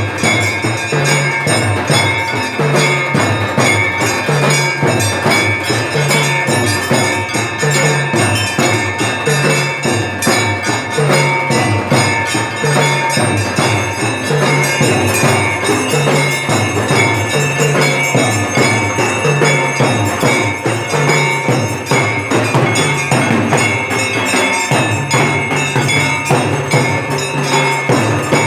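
Temple bells ringing continuously with rapid, repeated strikes, over percussion with a low beat that shifts about once a second.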